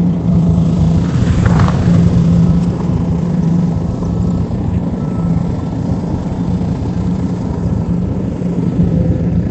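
Kubota DC70 Pro rice combine harvester's diesel engine running steadily under harvesting load, a constant low drone with a dense rumble, and a short hiss about a second and a half in.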